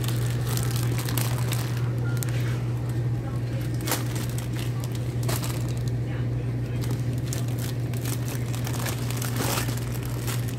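Shop ambience: a steady low hum with scattered sharp clicks and plastic crinkling as a wheeled shopping basket trolley is pulled along the aisle.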